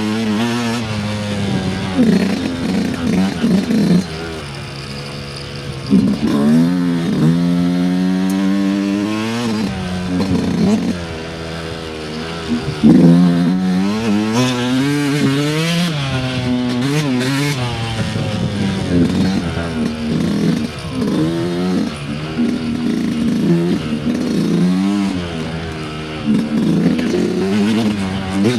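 Dirt bike engine running as it is ridden along a trail, its revs climbing and dropping over and over with the throttle. It drops to low, quieter revs for a couple of seconds about four seconds in, then picks up again.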